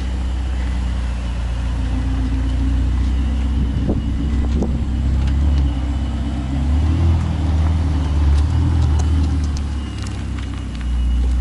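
A car engine running at low revs as the car is slowly driven and manoeuvred out, a steady low hum that swells a little partway through and eases briefly near the end.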